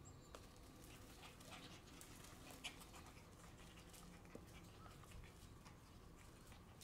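Near silence with faint scuffling from two Shiba Inu puppies play-wrestling: scattered light clicks and scrapes of paws on concrete and gravel.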